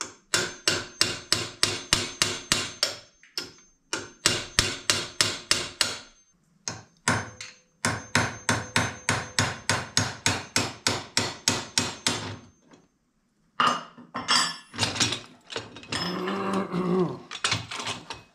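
Steel hammer striking a pin punch to drive out a heavily corroded pivot pin from a 1968 VW Beetle pedal cluster clamped in a bench vise: quick runs of sharp metal-on-metal blows, about four or five a second, broken by short pauses. Near the end the even blows give way to a stretch of denser, less regular clatter.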